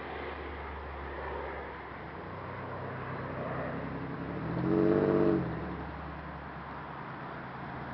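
Chevy Malibu's 3100 V6 through an exhaust with no muffler (high-flow cat into a Y-pipe, slashed tips): a low distant rumble, then a loud engine note that swells and falls away about four and a half seconds in.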